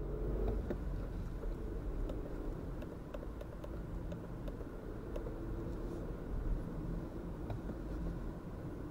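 Cabin sound of a VW Polo's 1.0 TSI three-cylinder turbo petrol engine pulling the car from about 40 to 60 km/h, shifting from second into third gear, with a steady low engine and road rumble and a few light ticks.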